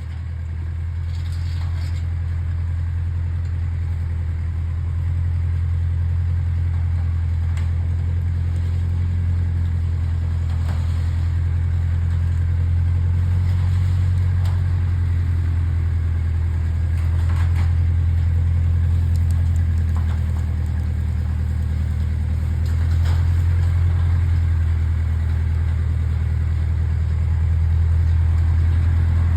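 Backhoe engine running steadily with a low drone, with a few faint knocks and clicks over it.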